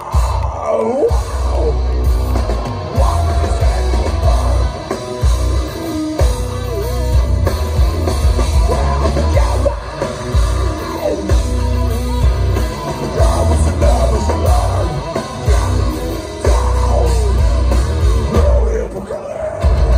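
Live heavy metal band playing at full volume, with vocals, distorted electric guitars and pounding drums, heard from within the crowd with a booming low end.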